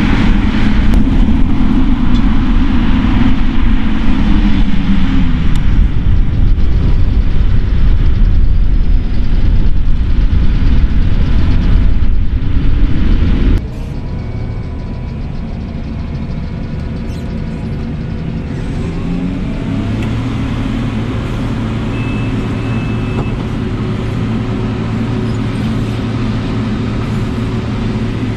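Farm machinery diesel engines running at a maize harvest: loud and close at first, with an engine note that falls a few seconds in. About halfway through the level drops suddenly to a quieter, steadier engine sound, and a steady low hum joins near the end.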